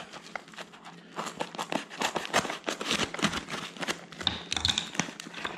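Plastic packaging crinkling and rustling as it is handled, a dense run of irregular small crackles and clicks.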